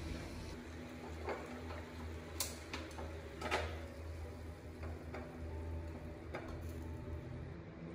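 A few irregular light clicks and taps, the loudest about three and a half seconds in, over a steady low hum.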